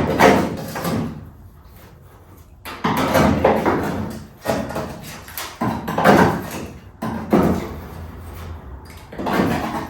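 A series of about six sharp knocks and scrapes on the car's sheet-metal body, each fading within a second, as nest debris is worked out of the panel.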